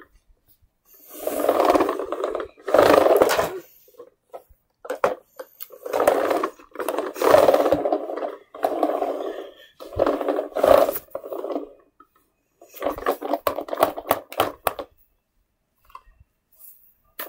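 Scraping and rubbing close to the microphone as plush toys and hands are moved about on a carpet, in about six stretches of a second or two each with short pauses between.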